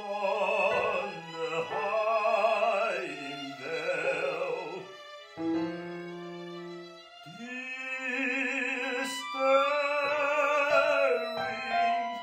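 Contemporary art song: a voice singing in operatic style with wide vibrato over sustained low notes. Around the middle the voice drops out, leaving only the low held notes, then the singing comes back in with a sliding entry.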